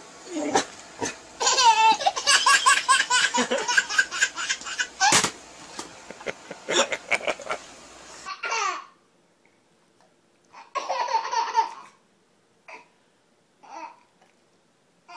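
A baby laughing hard in fast, repeated bursts of giggles. About eight seconds in, after a cut, it turns to shorter, quieter bouts of laughter with pauses between.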